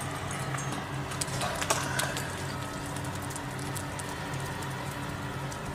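Steady low machine hum with a few faint ticks about one to two seconds in.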